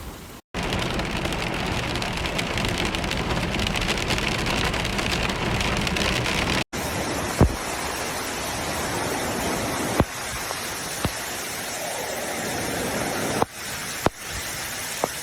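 Heavy rain pouring down as a dense, steady hiss. It breaks off abruptly twice, and later a few sharp single knocks stand out above the rain.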